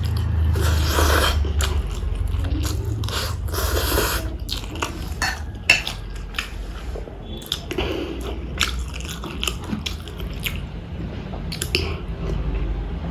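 A person chewing and eating close to the microphone: wet mouth sounds and smacking, with many short sharp clicks scattered throughout.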